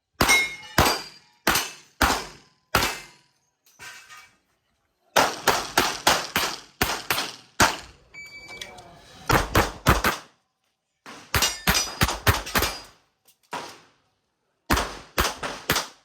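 Tanfoglio pistol fired in quick strings of shots, two to several shots at a time, with short pauses between strings. A brief metallic ring sounds a little past halfway.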